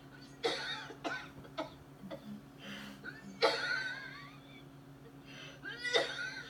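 A woman coughing and retching in short bursts, about five times, the loudest a strained cry with a wavering pitch. She is being made to vomit during a deliverance prayer.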